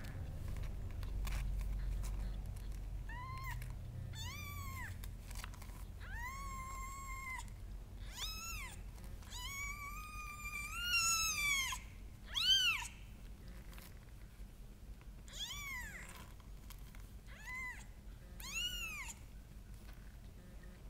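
Three-day-old kittens mewing: about a dozen thin, high calls that rise and fall in pitch, starting about three seconds in. Some are short and a few are drawn out over a second or more, with the loudest past the middle. A low rumble runs in the first few seconds.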